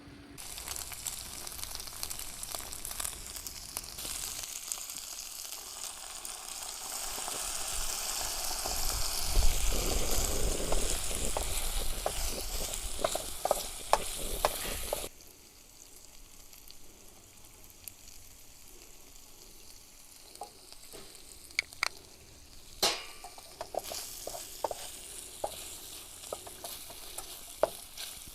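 Food frying in a pan: a loud, steady sizzle that stops suddenly about halfway through, followed by a quieter stretch of scattered clicks and taps.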